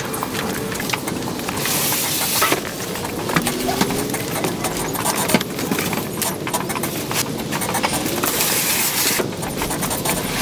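Boxed kitchen cabinets being handled on the back of a box truck and set down on the driveway: scattered knocks, scrapes and cardboard clatter. Two brief rushes of noise come about two seconds in and again near the end.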